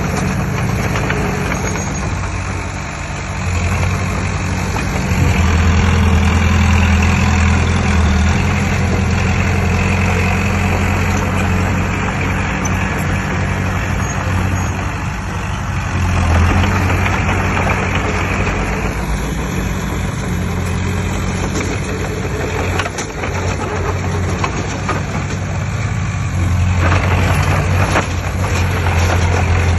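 Heavy earthmoving machine's diesel engine running continuously, swelling and easing several times as it works under load.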